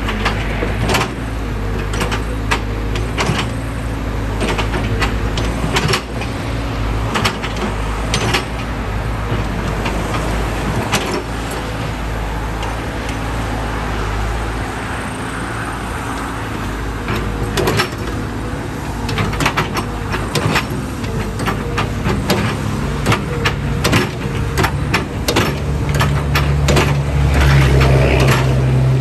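Caterpillar 311D excavator's diesel engine running steadily, with frequent sharp metallic clanks and knocks from the machine working. The engine note rises and grows louder in the last few seconds as it takes more load.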